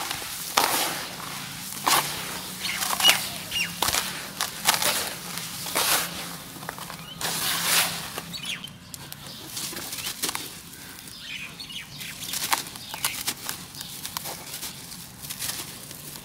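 Hands scooping and crumbling dry brown dirt mixed with powdery cement: irregular gritty crunches and short sifting rushes as the soil is broken up and falls back, roughly one to two a second.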